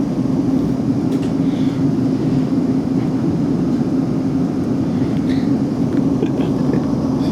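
Steady running noise heard inside a South Western Railway Class 458 electric multiple unit under way, with a constant low hum and a few faint clicks.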